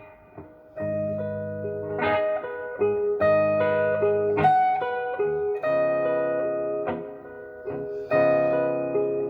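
Gibson SG Special electric guitar on its neck pickup through a Fender Blues Junior tube amp, playing slow blues. Sustained chords and single-note lines ring out with reverb.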